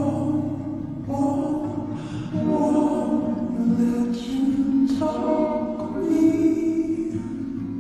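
Music: a song with singing voices, sung in phrases of about a second each.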